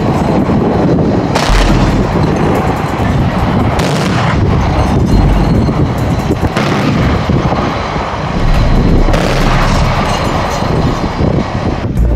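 Pantsir-S1 air-defence system firing at a target: about five heavy booms, with a continuous rumble between them.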